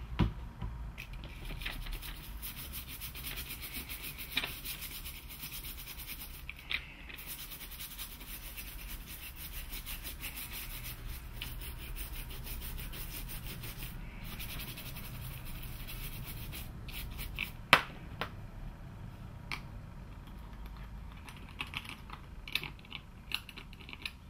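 Toothbrush bristles scrubbing flux residue off a freshly soldered circuit board: a fast, continuous scratching. There is one sharp click a little past two-thirds of the way through, and a few lighter clicks near the end.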